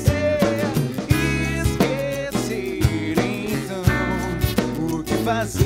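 A band playing live: a male voice singing a melody over a hollow-body electric guitar and a drum kit, with steady low notes underneath and regular drum hits.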